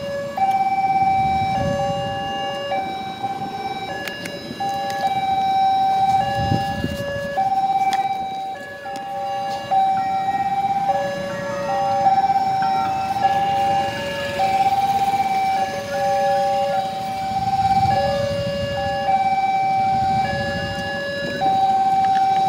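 Level crossing warning alarm sounding continuously, two electronic tones alternating high and low, each held for under a second, over the low rumble of idling motorcycle engines.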